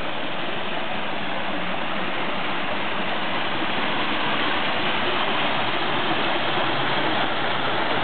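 Small rock-garden waterfall: water spilling down a stepped stone cascade into a pond, a steady rushing splash that grows a little louder toward the end.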